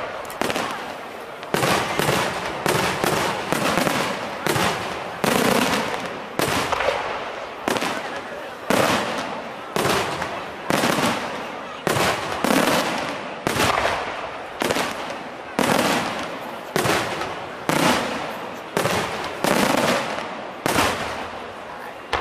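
Fireworks bursting in a steady run of sharp bangs, about three every two seconds, each one fading away before the next.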